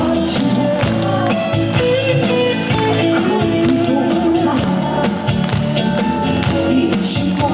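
Amplified trot song played over the stage's sound system: an instrumental passage with a steady beat under a moving melody line.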